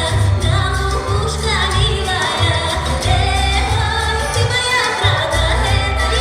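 Pop song with a female voice singing over a heavy, pulsing bass beat.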